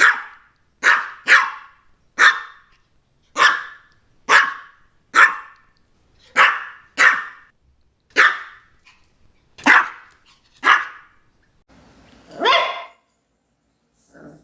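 Small Maltese dog barking: about a dozen short, sharp, high barks, roughly a second apart, then one longer drawn-out call with a sliding pitch near the end.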